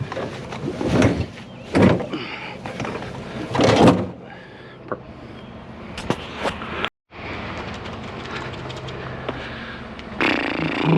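Scrap metal being handled and tossed aside: several loud knocks and scrapes in the first few seconds, then a quieter steady background hum, broken by a sudden brief dropout about seven seconds in.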